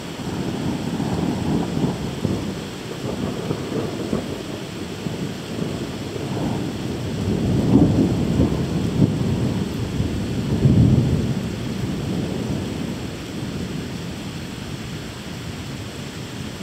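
Rolling thunder rumbling over steady rain, swelling twice in the middle and fading away toward the end.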